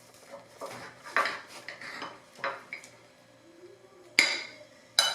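Cutlery clinking and scraping on a plate: a run of light clinks, then two sharp, ringing clinks about four and five seconds in.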